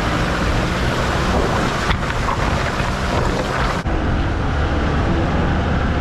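Wind rushing over the microphone above a low vehicle rumble. The sound changes abruptly twice, about two seconds and about four seconds in.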